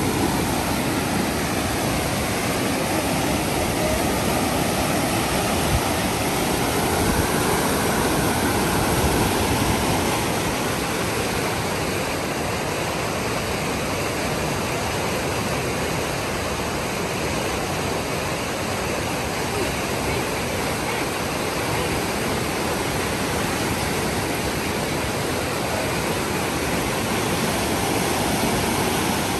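Steady rush of flowing floodwater, a continuous even roar of moving water.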